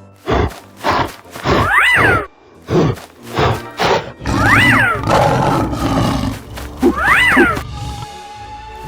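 Cartoon soundtrack: background music with animal roar and grunt sound effects and loud thuds. A quick swooping whistle-like sound effect rises and falls about three times, roughly every two and a half seconds.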